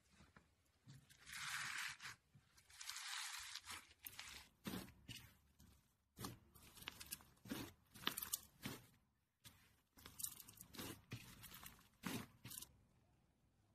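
Clear blue glitter slime being pressed and stretched by hand: two soft hissing swishes in the first few seconds, then a run of sticky crackles and pops as it is pulled apart and lifted.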